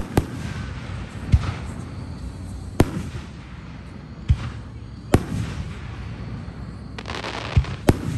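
Aerial fireworks shells bursting overhead: about seven sharp booms at irregular intervals of one to two seconds, two of them close together near the end, several followed by a brief crackle.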